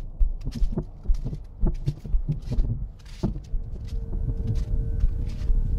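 Irregular low thumps and knocks with scattered clicks; about two thirds of the way through a steady held tone comes in.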